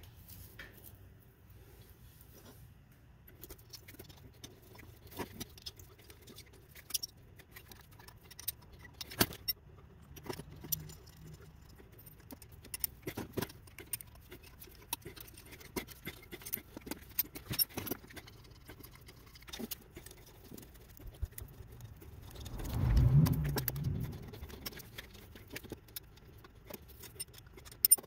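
Scattered metal clinks and clicks as cast turbocharger housings and the cast center exhaust manifold of a Mazda RX-7 sequential twin-turbo setup are handled and bolted together. About two-thirds of the way in, a louder low rumble lasts about two seconds.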